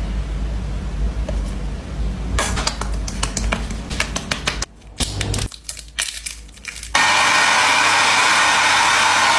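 Sharp clicks and taps of skincare containers being handled, then, about seven seconds in, a loud steady hiss starts suddenly.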